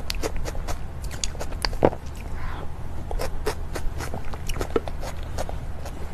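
A person chewing a mouthful of cream cake close to the microphone: many quick mouth clicks and smacks, several a second, over a low steady hum.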